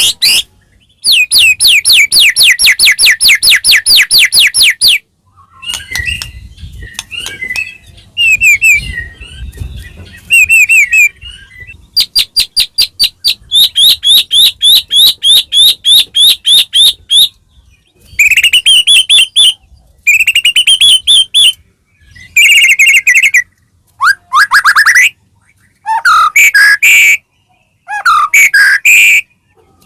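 White-rumped shama (murai batu) singing loudly in bursts of fast repeated whistled notes with short pauses between phrases. There is a softer, more varied chattering passage about a third of the way in.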